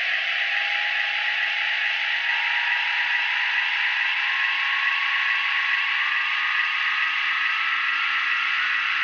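The TARDIS take-off sound effect: a loud, steady electronic hiss with a single tone slowly rising in pitch, over a low, evenly pulsing hum.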